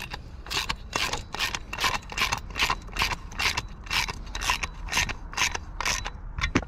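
Hand socket ratchet worked in quick back-and-forth strokes, clicking about two to three times a second as a 17 mm socket runs down the Nyloc nut on a lawn mower blade bolt; it stops near the end.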